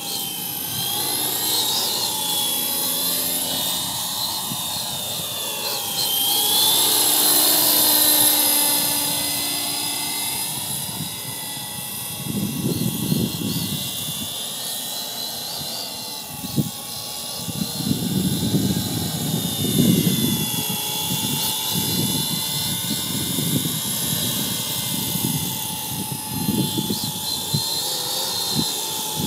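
MJX F49 brushless RC helicopter's electric motor and rotor whining, the pitch rising and falling as the throttle changes. From about midway, gusts of wind buffet the microphone.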